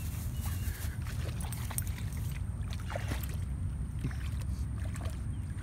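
A puppy splashing and pawing through a shallow muddy puddle, with scattered small splashes over a steady low rumble.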